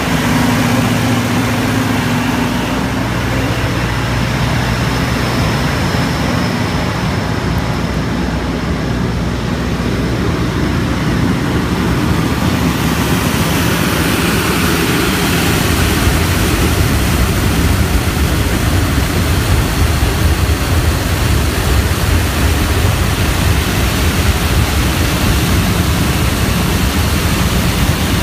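AC 2030DE aircraft ground air-conditioning unit running, first heard as a steady machine hum, then, from about halfway, as a loud rush of air blowing out of its yellow discharge duct straight onto the microphone as the unit delivers cooled air.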